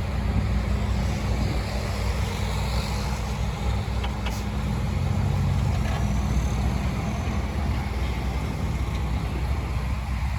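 Heavy diesel engine of earthmoving machinery running steadily, a continuous low drone.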